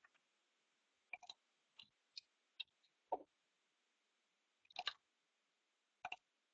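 Near silence broken by faint, irregular clicks of a computer mouse, about eight spread over six seconds.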